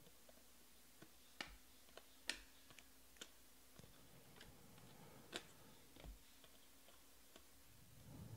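Near silence broken by a scattering of faint, sharp clicks as glossy chromium trading cards are slid and flipped from one hand to the other.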